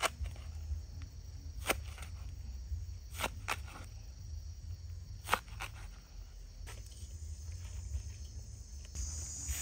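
Kitchen knife slicing a banana flower, its blade knocking on a wooden cutting board: about five sharp chops at uneven intervals through the first half, over a steady chirr of insects.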